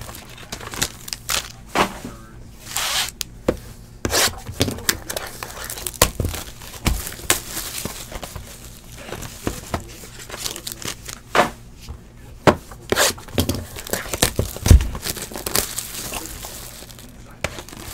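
Plastic shrink wrap being torn and peeled off a cardboard trading-card box, crinkling in irregular sharp crackles and snaps.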